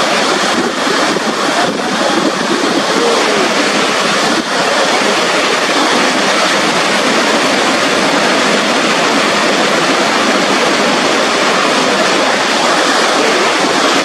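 Niagara Falls: a loud, steady rush of water pouring over the brink of the falls.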